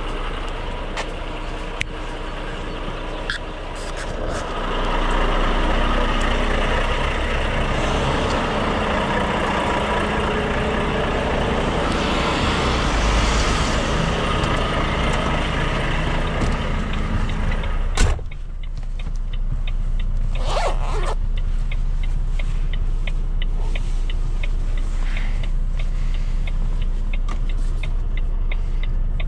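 A Volvo FM truck's diesel engine runs under a steady low drone, with louder driving noise through the middle. About eighteen seconds in there is a single sharp knock, after which it quietens and a steady ticking sets in, typical of the turn-signal indicator.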